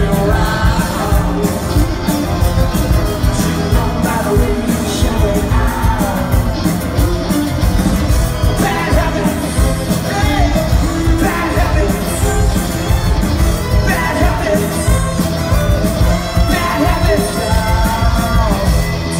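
Live rock band playing a song: a male lead singer over acoustic and electric guitars and a steady beat, heard from within the audience.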